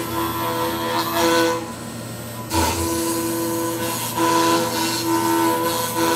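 5-axis CNC machine's spindle milling laminated katsura wood: a steady whine over cutting noise. It goes quieter about a second and a half in and picks back up near two and a half seconds.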